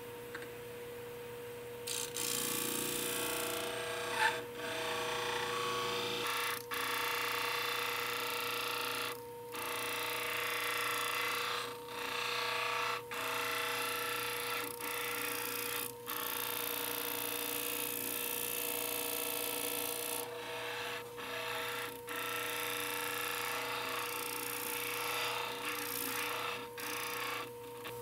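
Dental model trimmer's abrasive wheel running with a steady hum while grinding a yellow dental stone study model pressed against it. The rasping grind starts about two seconds in and breaks off briefly several times.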